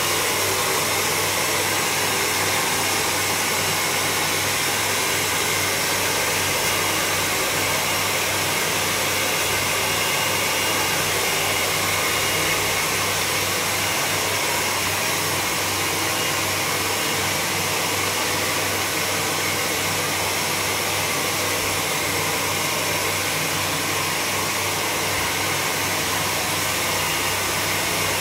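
Handheld hair dryer blowing steadily on a client's hair, running without a break.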